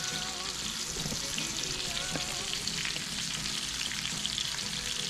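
Fish fillets frying in hot oil in a pan, with a steady sizzle and fine crackle.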